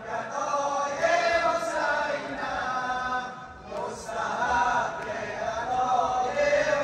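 A group of voices chanting a noha, a Shia Muharram lament for Imam Husayn, in unison to a rising and falling melody, with a short breath-pause about three and a half seconds in.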